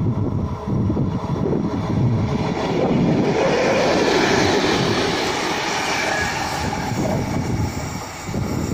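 Class 750 diesel locomotive passing close by: its diesel engine running with wheels clattering over the rails, growing louder to a peak about three to five seconds in, then easing off.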